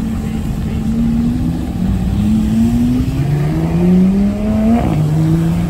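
A car engine holds a steady note, then accelerates with its pitch rising for about three seconds before dropping abruptly near the end as it shifts up a gear.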